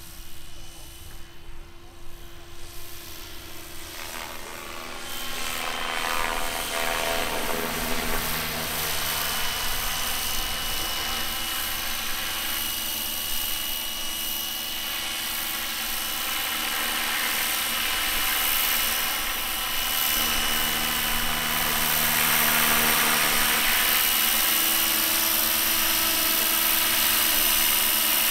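Electric-powered radio-controlled scale model of an SA-315B Lama helicopter flying: rotor noise with a steady high motor whine. It grows louder about five seconds in, and its tone sweeps slowly as the model moves.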